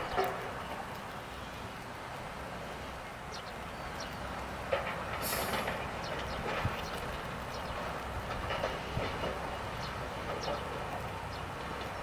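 Hyundai 140W wheeled excavator's diesel engine running steadily while the bucket shifts large stones, with scattered clacks and knocks of rock against rock and steel.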